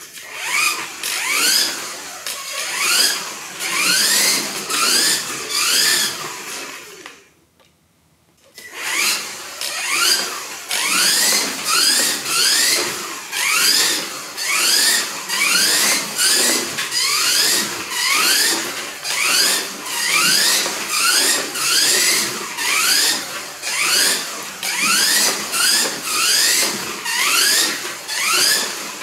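Kyosho Mini-Z radio-controlled car's small electric motor and gears whining in a string of short rising sweeps as it speeds up and lets off around the track. It stops for about a second and a half, about seven seconds in, then carries on.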